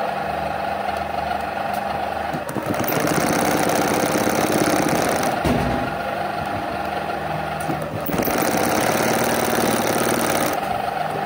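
Black sewing machine running steadily, its needle stitching at a fast even rhythm over a motor hum, dipping briefly twice.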